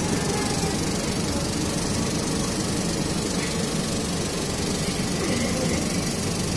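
Film projector running: a steady mechanical noise from its motor and film transport, even in level throughout.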